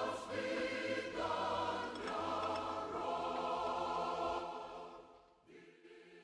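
Choral music: a choir singing sustained chords that change about once a second, fading away near the end.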